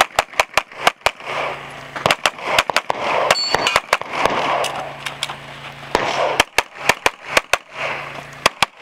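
Glock pistol fired in quick strings of shots, with gaps of one to two seconds between strings and a brief ringing about three and a half seconds in.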